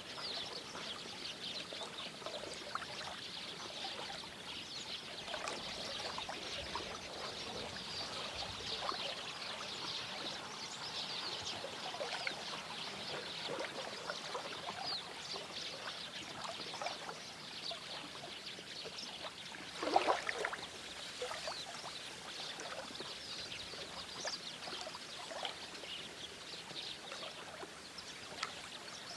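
A river or stream running with steady splashing and trickling. About two-thirds of the way in there is one short, louder sound that rises in pitch.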